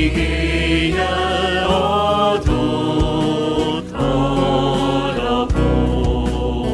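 Mixed choir singing a hymn with a small band of electric guitars and keyboard. Sustained chords run on with a short break between phrases about four seconds in.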